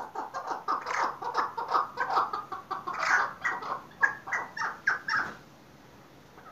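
Young chukar partridges calling: a rapid run of short, repeated calls, several a second, that stops about five seconds in.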